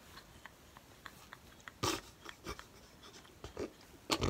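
Silent, breathless laughter: a few sharp gasps and small mouth clicks, the loudest about two seconds in and again just before the end.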